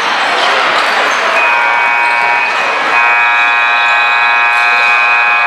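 Electronic buzzer horn of a basketball scoreboard, holding a steady multi-tone blare. It comes in about a second and a half in and grows fuller about three seconds in.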